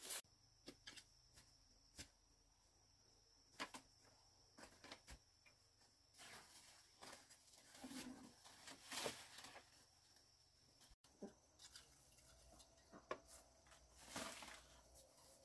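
Near silence, broken by a few faint, scattered clicks and taps.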